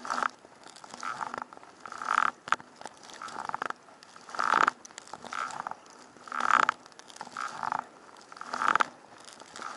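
Double-bladed sea kayak paddle strokes in choppy sea water, each blade dipping and pulling through on alternating sides. Each stroke is a short splash, about one a second.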